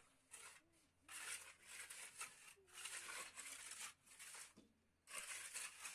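Scraping strokes of a hand or small trowel being worked over wet sand-and-cement on a cave floor, smoothing it, in three spells of a second or more each. A faint voice murmurs briefly near the start.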